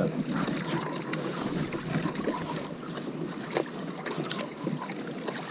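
Wind buffeting the microphone and water lapping around a small fishing boat, with a few scattered clicks and knocks.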